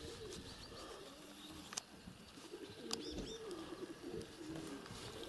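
Domestic pigeons cooing faintly, a low wavering warble that keeps going, with a few short high chirps from small birds and a couple of sharp knocks.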